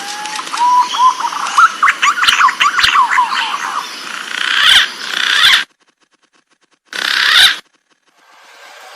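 Green pigeons (punai) calling: gliding whistled notes, then a quick run of short rising and falling notes. The recording cuts off abruptly twice, with silent gaps between the pieces.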